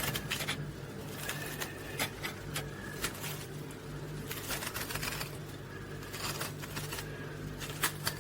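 Raw turnip being hollowed out with a small hand tool: irregular scrapes and clicks as the flesh is cut and scooped out.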